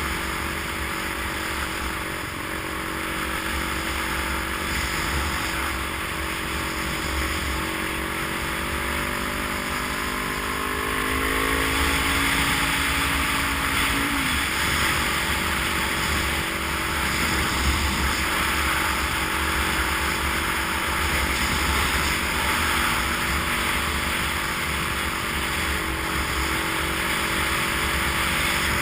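A motor vehicle on the move, with steady road and wind noise. Its engine tones rise in pitch for a few seconds and break off about fourteen seconds in, after which the noise is a little louder.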